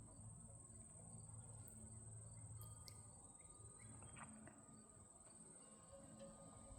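Faint, steady high-pitched insect trill held throughout, with a few faint ticks.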